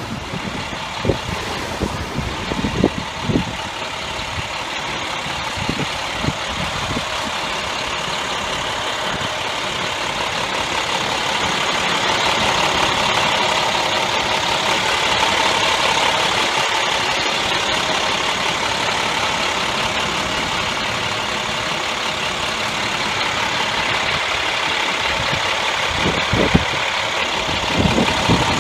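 Heavy rescue truck's engine idling steadily, with scattered low thumps in the first few seconds and again near the end.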